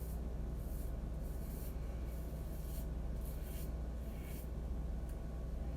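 Cheap Chinese knockoff of a Gillette Tech safety razor scraping through stubble in about six short strokes, over a steady low hum.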